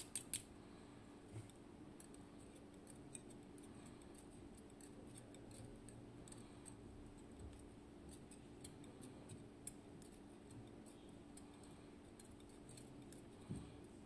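Faint, scattered small metallic clicks of steel tweezers picking at a lock cylinder's plug to pull out its tiny springs, with a few sharper clicks at the start, over a faint steady hum.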